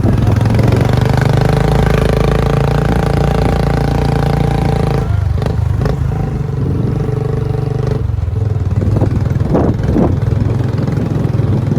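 Motorcycle engine running while being ridden, its note shifting about five seconds in and again about eight seconds in.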